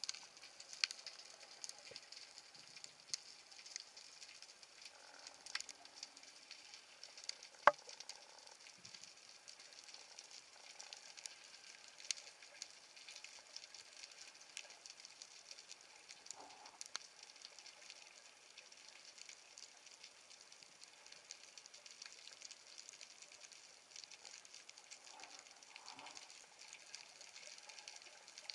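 Underwater crackling of a shallow rocky seabed, heard through a submerged camera: a steady frying-like hiss dotted with many small sharp clicks, one much louder click about eight seconds in.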